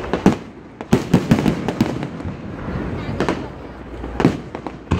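Fireworks bursting in a string of sharp bangs with short rumbling echoes: a quick cluster of about six bangs about a second in, then single bangs roughly a second apart.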